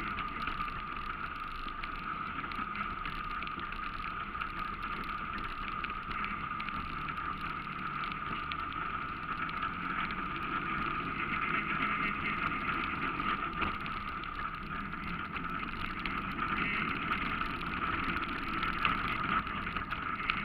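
ATV engine running steadily as the machine rides along a dirt trail, an unbroken drone with a constant mid-pitched hum over it.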